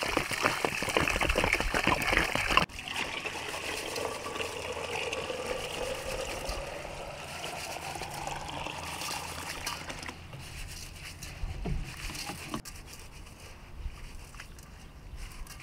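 Water splashing as it is poured over raw rice in an aluminium basin, with hands rubbing the grains. This is the loudest part and cuts off about two and a half seconds in. After that come softer, steady sloshing and swishing sounds as hands wash the rice in the water.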